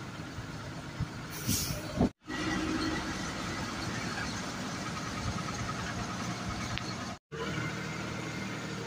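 Bus engine and road noise heard from inside a moving bus, a steady rumble with a short hiss about one and a half seconds in. The sound cuts out briefly twice.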